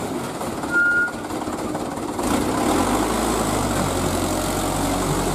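Loaded dump truck's engine running at low speed as the truck creeps forward, its low note growing heavier about three seconds in. A short high squeal about a second in.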